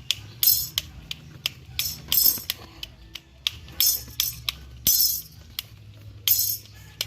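Metal parts of an umbrella frame clinking and jingling in short irregular bursts, with sharp clicks in between, as the umbrella is worked on by hand with tools.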